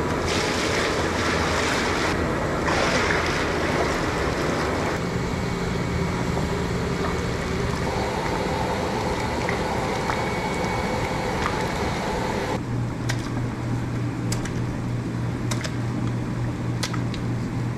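Rice batter poured in a stream into a cloth-lined steamer and spread by hand, over a steady rush of steam. About twelve seconds in the sound changes to a steady low hum with scattered sharp clicks.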